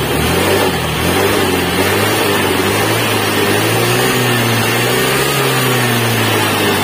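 Honda Vario 110 scooter's single-cylinder four-stroke engine idling steadily, its revs rising slightly and falling back about four to five seconds in.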